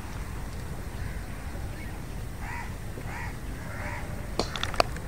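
Three short caws, typical of a crow, over a steady low outdoor rumble, followed near the end by a quick cluster of sharp clicks, the last of them the loudest sound.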